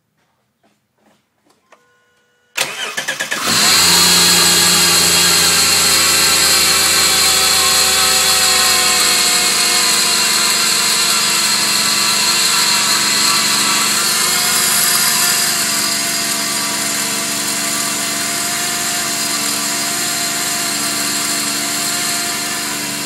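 2005 Subaru Outback's 3.0-litre flat-six is started: a few faint clicks, then a short crank about two and a half seconds in before it catches and idles. A loud, high whine from a bad accessory-belt idler pulley runs over the idle.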